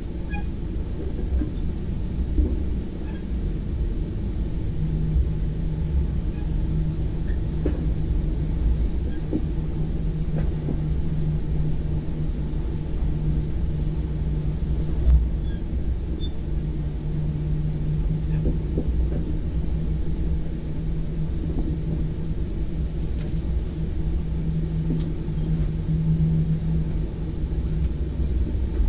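Interior rumble of a Virginia Railway Express commuter train under way, heard from the upper deck of a Gallery IV bilevel trailer car. A steady low hum runs under it, and there are a few faint clicks, one sharper about halfway through.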